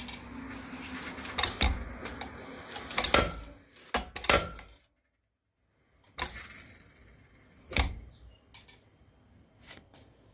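Homemade pneumatic power hammer (Bulldog 15 design) tapping very lightly: a series of sharp, light metallic clinks as the dies barely touch the work, over a steady hiss of air. The sound cuts out completely for about a second midway, then a few more taps follow.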